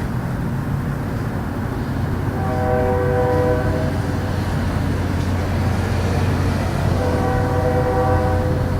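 Two long, steady horn-like blasts, each a chord of several tones held for one to two seconds, about four and a half seconds apart, over a continuous low hum. This is the trumpet-like sound posted as unexplained.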